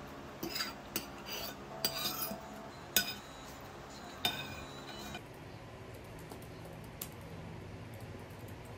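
Metal spoon and fork scraping and clinking against a plate while eating: a run of clinks over the first five seconds, the sharpest strike about three seconds in.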